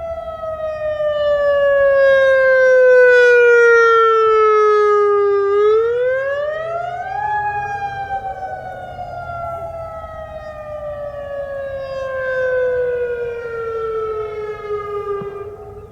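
Federal Signal EOWS 612 electronic outdoor warning siren sounding its attack signal: a pitched tone that falls slowly, sweeps quickly back up about six seconds in, then falls slowly again.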